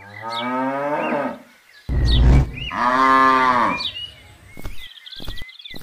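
Cattle mooing: two long moos, the second rising and then falling in pitch, followed by a few sharp clicks near the end.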